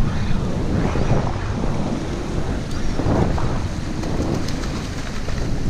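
Wind buffeting the microphone, with sea water washing and churning against the jetty wall below.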